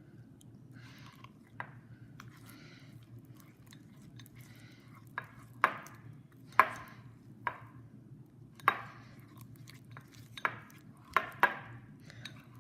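Clear glue slime with glitter being mixed in a bowl as the activator takes hold: soft sticky squishing and rustling, then a string of sharp clicks and snaps from about halfway through as the thickening slime pulls and the utensil knocks the bowl.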